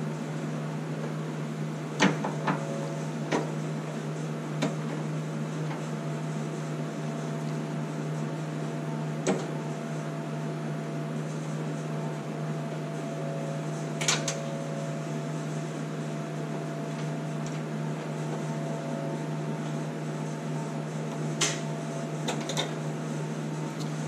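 Scattered sharp clicks and taps from hand tools and wire connectors being worked on the ultrasonic cleaner's stainless steel housing, over a steady low hum.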